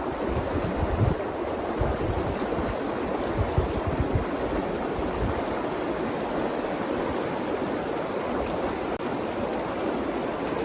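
River water flowing steadily, with wind buffeting the microphone in gusts during the first few seconds.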